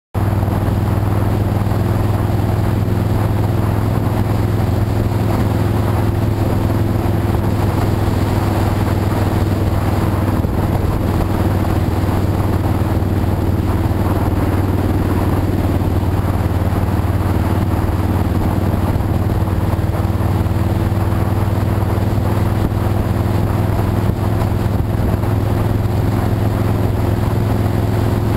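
Motorcycle engine running steadily at cruising speed, holding an even low drone with no revving, over a constant rush of wind and road noise.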